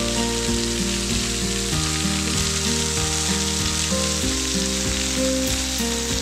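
Small waterfall splashing into a rock pool, a steady hiss of falling water, with background music of held notes changing chord every second or so.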